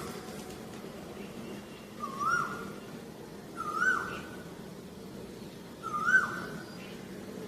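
Asian koel calling: three short whistled notes, each sweeping upward with a slight waver, about two seconds apart.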